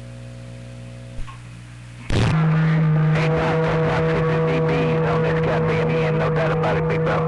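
Radio receiver hissing with a low steady hum, then about two seconds in a strong incoming transmission opens up loudly: a steady buzzing hum on the signal with faint, garbled voice underneath.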